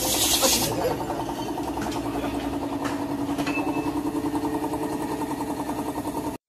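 A vehicle engine running steadily, its sound pulsing at an even rate. A hiss is heard in the first second, and the sound cuts off suddenly near the end.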